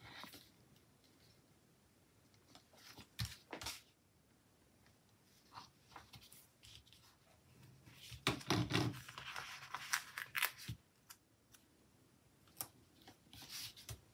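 Quiet paper handling: a few sharp snips or clicks, then a longer spell of paper rustling and sliding about eight seconds in, as planner pages and sticker sheets are moved.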